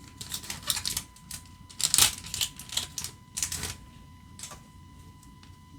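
Foil booster-pack wrapper crinkling and tearing as it is pulled open, in several bursts of crackling over the first four seconds or so, with one last crinkle a little later.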